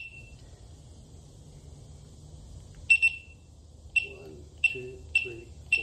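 Begode A2 electric unicycle beeping: five short, high beeps starting about three seconds in, the first two about a second apart and the rest quicker. Each beep answers a press of the wheel's button, pressed five times in the sequence meant to take the wheel out of transport mode.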